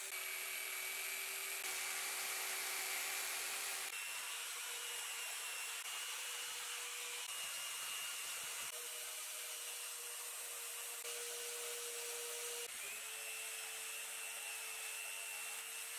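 Jigsaw cutting through a thick block of glued, stacked plywood, its motor running at a steady pitch with the blade rasping through the wood. The motor's pitch steps a little higher about four seconds in and dips briefly near the end.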